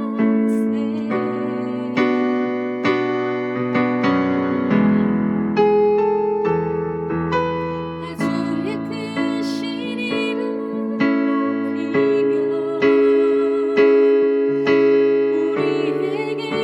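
Keyboard playing a slow worship song: chords and melody notes struck about once a second, each ringing and fading before the next.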